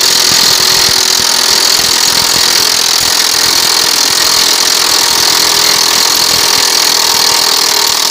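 Milwaukee M18 cordless impact wrench hammering without a break on a rusted axle nut of a disc harrow. Loud, rapid impacting with a steady high-pitched ring over it.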